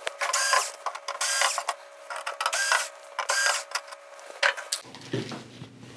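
A screwdriver backing screws out of a TV main board's metal housing, in about four short mechanical spells of roughly half a second each over the first four seconds.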